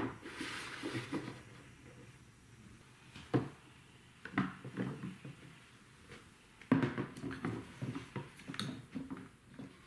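Wooden and plastic marble-run pieces being handled and fitted together: scattered knocks and clacks in clusters, near the start, around three to five seconds in, and a busier run from about seven seconds in.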